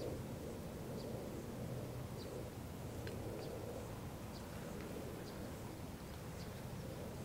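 Outdoor ambience: a steady low rumble with faint, very short high chirps about once or twice a second.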